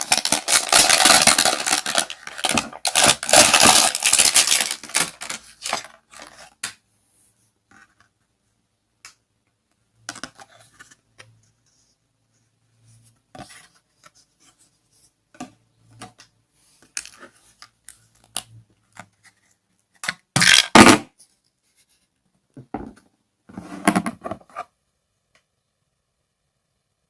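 Close-up handling of a toy and its packaging: dense scraping and crackling for the first few seconds, then scattered clicks and taps, with short louder bursts of scraping about 20 and 24 seconds in.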